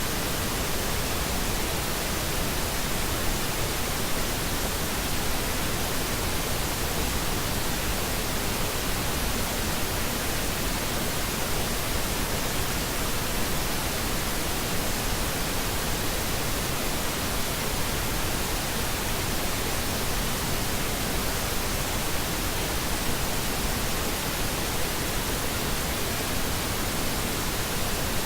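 Steady pink noise: an even, unchanging hiss spread over all pitches.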